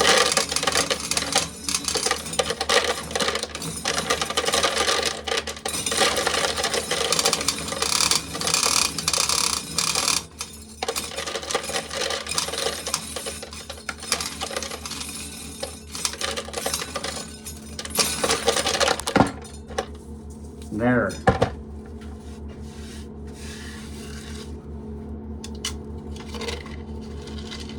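Corn being shelled, dried kernels clattering and rattling rapidly into a pail. The clatter dies away about eighteen seconds in, leaving a steady hum.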